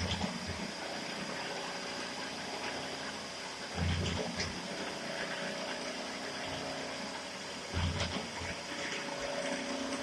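Plano milling machine running while cutting a large gear, with coolant flowing over the work, a steady high whine, and a low thump about every four seconds.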